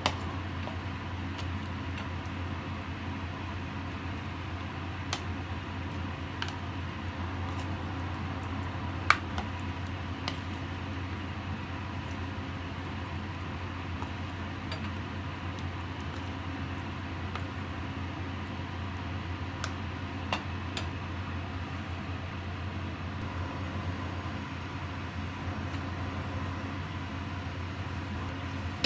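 A metal spoon stirring chicken pieces in a thick yogurt marinade in a bowl, with a few light taps of the spoon against the bowl scattered through, over a steady low hum.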